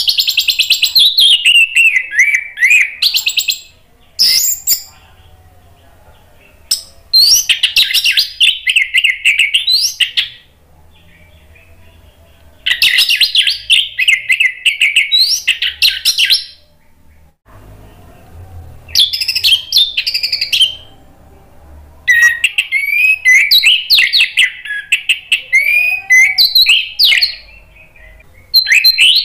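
Orange-headed thrush in full song: loud bursts of rapid, varied whistled phrases, about seven of them, each two to four seconds long, separated by short pauses.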